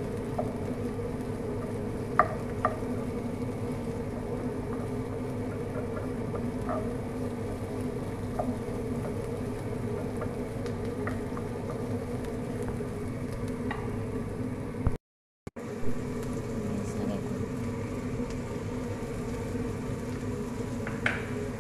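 Wooden spatula stirring sliced onions in a nonstick frying pan, with a few light taps of the spatula against the pan, over a steady low buzzing hum. The sound cuts out for a moment about fifteen seconds in.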